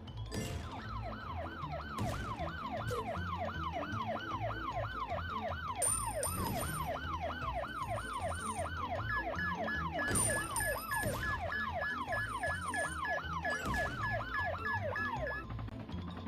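A toy car's electronic siren, a fast repeating wail of about three sweeps a second. A steady pulsed beeping joins it about nine seconds in, and both stop shortly before the end.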